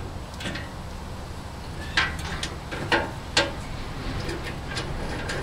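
Socket wrench ratchet clicking in a few scattered strokes on a long extension, backing off nuts inside a cast-iron table saw cabinet, over a low steady hum.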